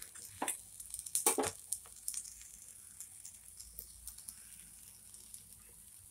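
Bread slices frying on a tawa, sizzling softly, with a few sharp clicks and knocks of a metal spatula pressing on the bread and pan in the first second and a half.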